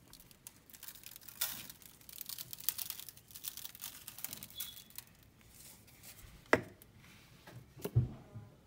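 Seasoning shaken from a shaker bottle over raw Cornish hens in a disposable aluminium foil pan, with quick crackly rasps from the shaker and the crinkling foil. There is a sharp knock about six and a half seconds in and a duller thump near the end.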